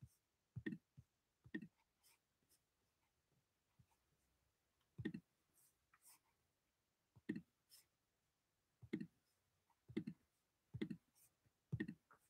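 Near silence broken by faint, irregular clicks, about nine spread over several seconds.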